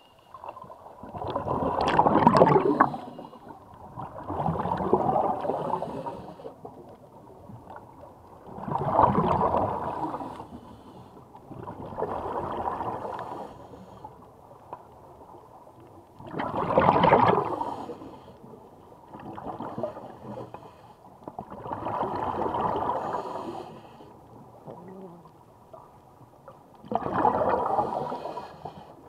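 Scuba diver breathing through a regulator underwater: a bubbling rush of exhaled air about every seven to eight seconds, with quieter breaths in between.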